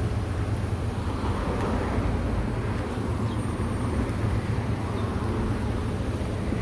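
Steady low rumble of a vehicle engine running at idle, with street traffic noise around it.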